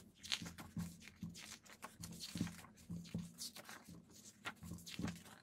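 Pages of a large photobook being turned and handled: repeated soft paper rustles with light knocks of the book and hands.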